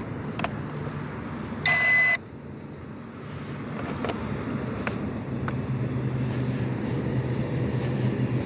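A single loud electronic beep, about half a second long, about two seconds in, from a small drone that will not power up on a flat battery. A steady low hum runs underneath.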